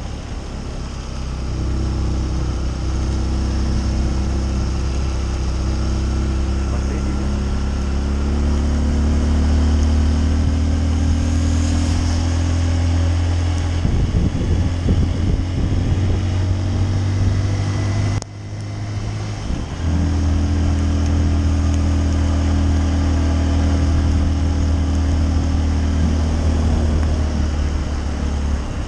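Honda CRF150L's single-cylinder four-stroke engine running steadily under way, its pitch climbing slowly as the bike gains speed. It breaks up briefly around the middle and cuts out for a moment about two-thirds through before settling back to a steady run.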